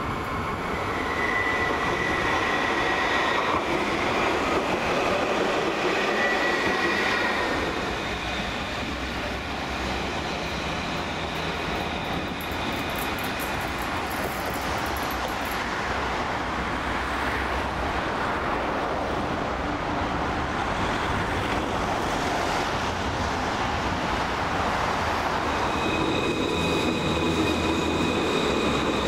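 Alstom Citadis light-rail tram running past on curved track, a steady rolling rumble. A high-pitched wheel squeal on the curve comes in the first few seconds, and high steady tones return near the end.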